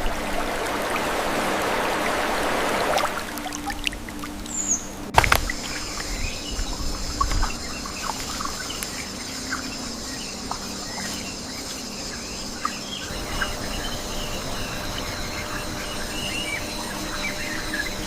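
Rainforest ambience: rushing water for the first few seconds, then, after a sharp click about five seconds in, many short bird chirps over a steady high-pitched hum.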